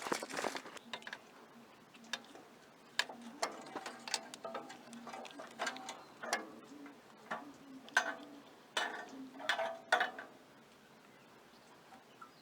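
Irregular light clicks and knocks of hand work on a riding mower's engine while spark plug wires are being routed and fitted, with a few short ringing taps about eight to ten seconds in.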